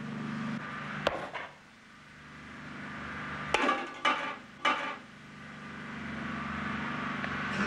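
Sharp knocks and clatter of pots and pans being handled at a kitchen stove: one knock about a second in, then three close together in the middle, over a steady low hum.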